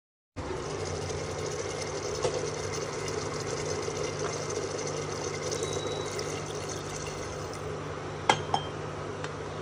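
Chicken curry simmering in an open pressure cooker pot, a steady liquid hiss over a low hum. Two sharp clinks come near the end.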